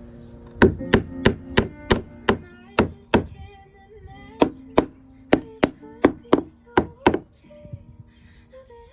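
A run of about seventeen sharp knocks or whacks, roughly three a second, with a pause of about a second partway through. Quiet music with held notes plays underneath.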